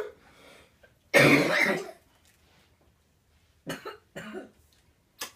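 A person coughing hard once, about a second in, followed by a couple of short, quieter throat sounds.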